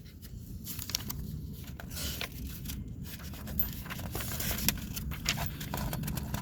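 Paper pages of an instruction booklet being turned and handled: soft rustles and small clicks over a steady low background rumble.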